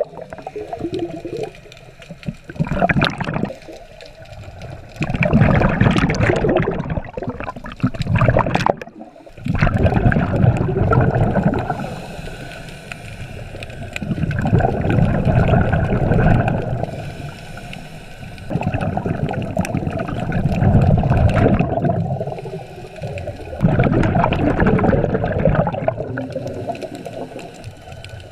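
Scuba diver's regulator breathing underwater: loud gurgling rushes of exhaled bubbles lasting two to three seconds, coming about every four to five seconds, with quieter gaps between breaths.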